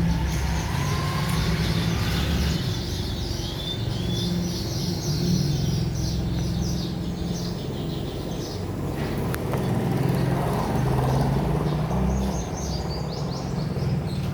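Outdoor ambience: a steady low rumble under small birds chirping repeatedly.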